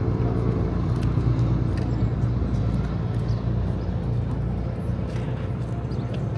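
Motor vehicle engine running steadily with a low hum, easing a little about five seconds in.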